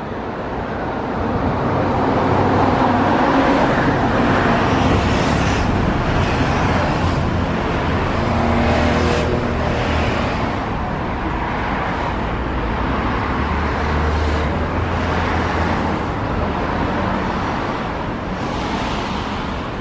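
Steady running noise of a moving vehicle heard from on board: a low rumble under a broad hiss, with occasional brief louder rattles.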